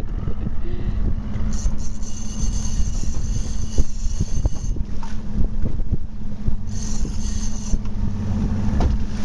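Sportfishing boat's engine running steadily, with wind buffeting the microphone. A high-pitched whine comes in twice, for about three seconds and then about one second.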